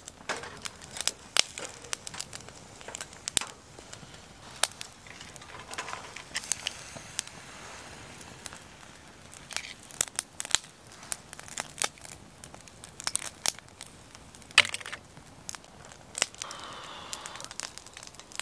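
Wood fire crackling and popping under a wire grill of oysters in their shells, with irregular sharp clicks and scrapes of the hot shells being handled and pried open.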